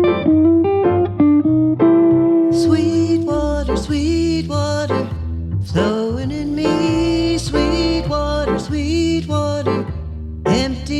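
Instrumental introduction to a gentle devotional song, led by guitar with a sustained melody line. The accompaniment fills out about two seconds in.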